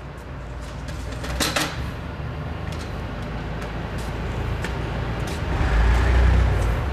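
A steady low mechanical rumble with a few sharp clicks and a knock, the loudest about one and a half seconds in. The low rumble grows louder near the end.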